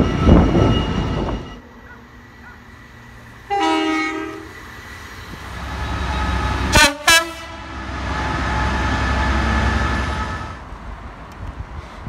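Class 66 diesel locomotive sounding its horn: one blast about a second long a few seconds in, then two short sharp toots near the middle. The locomotive's rumble follows as it comes through the station, after a loud rumble from another train at the start.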